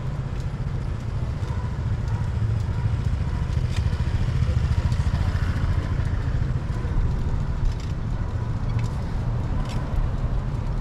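Motorbike engine running steadily while riding along, a continuous low rumble.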